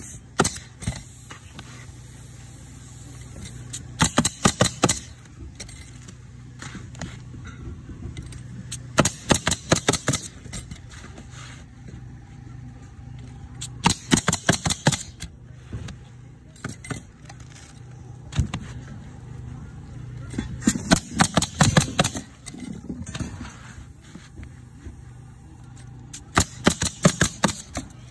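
Pneumatic coil roofing nailer firing into asphalt shingles: bursts of several quick shots, one burst about every five seconds, over a steady low hum.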